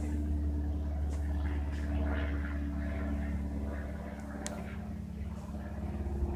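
Cessna light aircraft's piston engine and propeller droning steadily overhead, with a short sharp click about four and a half seconds in.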